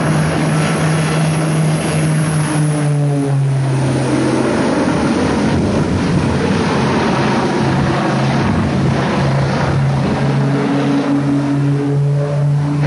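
Propellers of a twin-engine propeller aircraft flying low and droning steadily as two low hums over engine and air noise. One hum drops out about three seconds in and comes back about ten seconds in.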